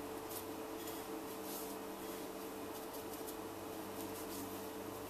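Faint, soft rustling and scratching of dry breadcrumb and cornflake-crumb mix as a chicken fillet is pressed and turned in it by hand, over a steady low background hum.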